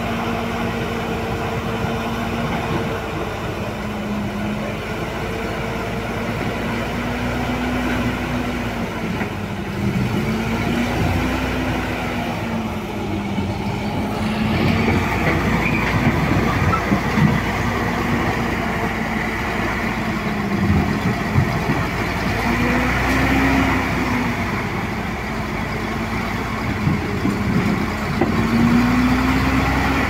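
Heavy diesel engine running steadily, its note repeatedly dipping and rising again every few seconds.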